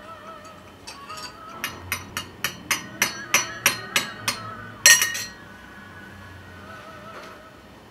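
Teaspoon clinking against a china teacup as tea is stirred, about three clinks a second, ending in one louder, ringing clink.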